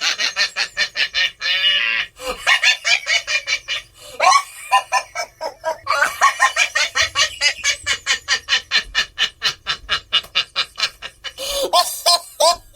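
Clown laugh sound effect: a high, rapid cackling laugh of about six "ha"s a second, in several long runs with short breaks between, and a few slower, lower laughs near the end.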